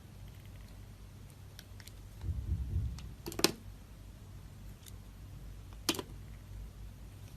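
Knife cutting into dry soap: a low scraping rumble a little after two seconds, then two sharp cracks, one at about three and a half seconds and one near six seconds, with faint light clicks between.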